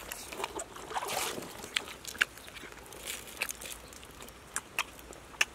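Eating sounds: scattered short clicks and lip smacks as fried fish is picked apart by hand and chewed, with a brief hiss about a second in.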